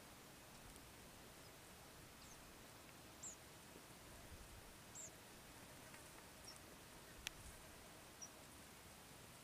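Near silence: faint outdoor ambience with a few short, faint high-pitched chirps and one sharp click about seven seconds in.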